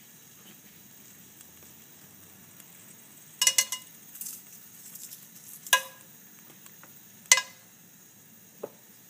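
Whole spices (cloves, dried red chillies, a cinnamon stick) dropped into oil in a nonstick pan. Each lands with a sharp clink that rings briefly against the pan: a quick cluster about a third of the way in, then single clinks every second or two, with a faint sizzle between.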